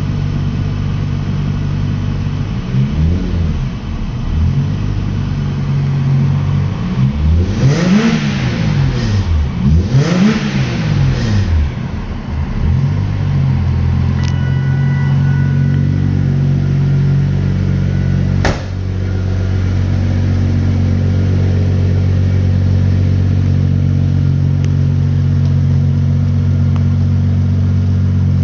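1989 Jaguar XJ-S's modified V12 engine idling, blipped several times in the first twelve seconds or so so that the revs rise and fall back, then settling to a steady idle. A single sharp click about eighteen seconds in.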